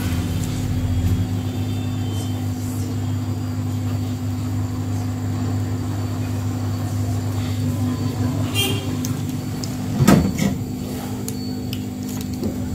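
Hot air rework station's blower running with a steady hum while heating a phone display's ribbon connector. A couple of light clicks and a handling knock come about nine and ten seconds in.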